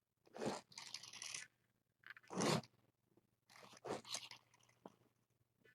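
Kitten tackling and biting a toy: five or six short scratchy rustles and crunches, with a single click near the end.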